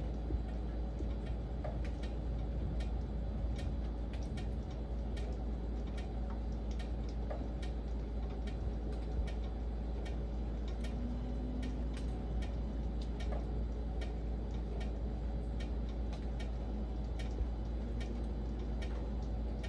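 Steady rain: an even low rumble with irregular sharp ticks of single drops, several a second.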